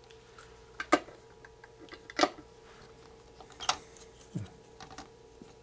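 Small hand tools and parts being handled on an electronics workbench: three sharp clicks about a second and a half apart, with lighter taps between them, over a faint steady hum.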